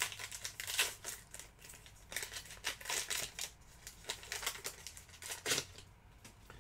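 Trading cards and their packaging being handled: papery rustling and crinkling in quick, scattered bursts that stop about five and a half seconds in.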